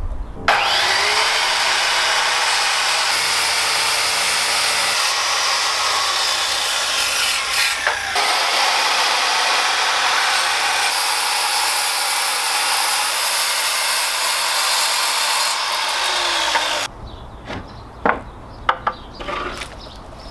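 Power saw cutting through wood: it starts about half a second in, cuts steadily for about sixteen seconds, then stops, followed by a few light knocks.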